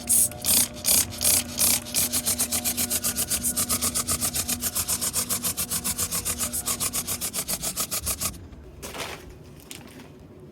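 Sprayer misting anti-mold solution in quick pulsing hisses, a few a second at first, then a steady run of about six a second that stops about eight seconds in, followed by one more short burst.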